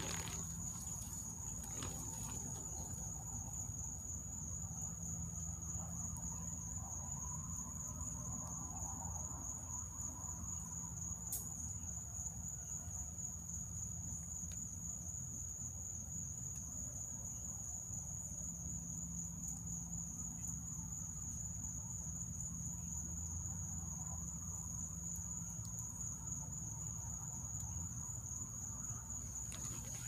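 Crickets trilling in one unbroken, high-pitched drone over a low, steady background rumble.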